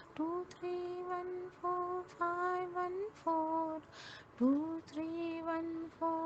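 A woman chanting the digits "2-3-1-4-5-1-4" in a held, sing-song near-monotone, one sustained note per digit. She takes an audible breath about four seconds in.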